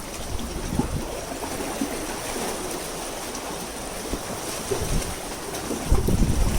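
Seaside wind buffeting the microphone over a steady wash of sea water, with a stronger gust rumbling in near the end.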